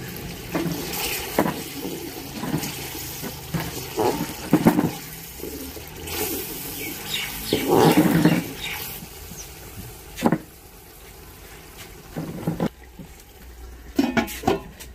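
Water poured and splashing into a metal cooking pot of chicken biryani, with several sharp metal knocks as the lid is set on to seal the pot for dum steaming.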